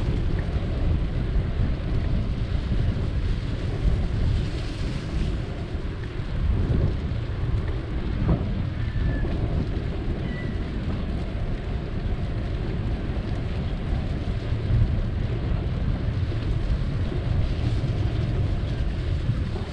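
Steady low rumble of wind buffeting the microphone of a camera riding on a moving bicycle, mixed with the road rumble of the ride along a concrete path.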